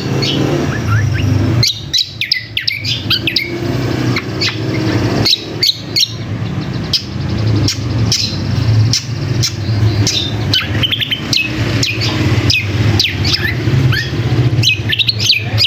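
Cucak kombo (kecial kombo) calling in a busy chatter of rapid short chirps and quick downward-sliding notes, over a steady low hum.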